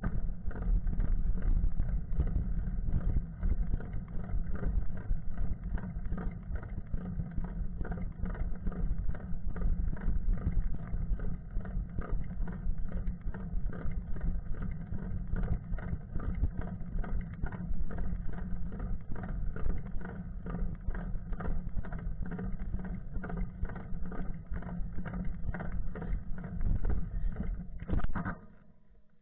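Steady low rumble with a dense rattle from a camera riding on a moving bicycle on an asphalt road: tyre, frame and mount vibration mixed with wind on the microphone. A few knocks come near the end, and then the rumble drops away.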